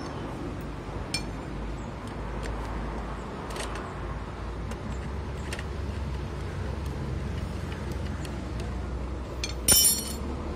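Light metallic clicks and clinks of clutch plates and a hand tool as a Honda EX5 motorcycle clutch is fitted onto the engine, with one louder metal clatter near the end, over a steady low rumble.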